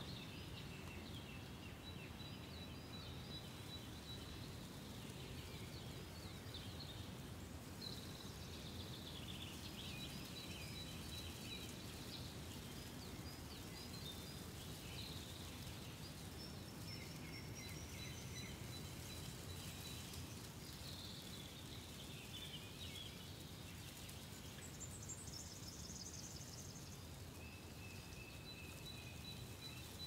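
Faint morning nature ambience: birds chirping and calling with short trills and thin whistled notes, over a steady low background hum.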